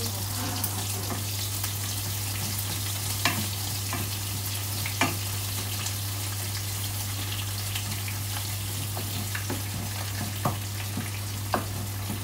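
Curry paste sizzling in hot oil in a wok, stirred with a wooden spatula that knocks sharply against the pan a few times, over a steady low hum.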